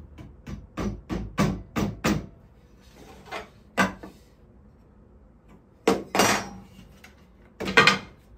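Wooden panel being knocked and shifted on a counter while it is worked into square: a quick run of about eight light knocks, a couple more, then after a pause louder clattering knocks as a square and a bar clamp are handled against the wood.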